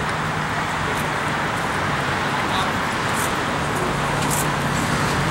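School bus engine idling: a steady low hum under an even hiss.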